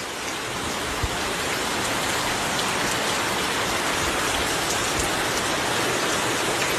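Heavy rain pouring down in a steady, dense hiss, with a faint low thud about a second in.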